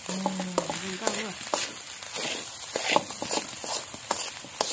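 Metal spoon scraping and clinking against a steel wok as rice fried with egg is stirred, a string of sharp clicks and scrapes. A short voice sounds in the first second.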